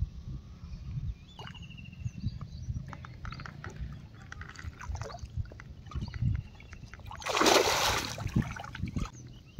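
Small water sounds as a frog lure is drawn across the surface, then, about seven and a half seconds in, a loud splash lasting about a second as a snakehead (murrel) strikes the lure and thrashes in the weedy shallows.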